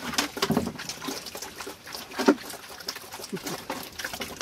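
Piglets feeding from a shallow pan of wet mash: a busy run of quick smacking, chomping chews, with a few short grunts, one about half a second in and one a little after two seconds.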